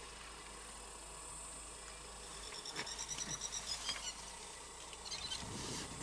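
Steady high-pitched buzzing of insects in the bush, with a bird calling a quick run of repeated notes about halfway through that drops in pitch at the end, and a shorter burst of notes a second later.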